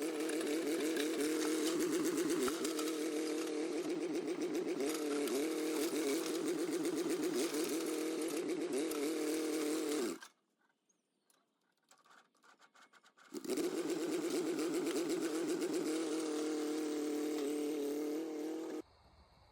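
1950s Mighty Cat micro bulldozer's engine running hard as the little crawler works, with a fast, rapid firing rhythm. The sound cuts off abruptly about ten seconds in, returns about three seconds later, and cuts off again near the end.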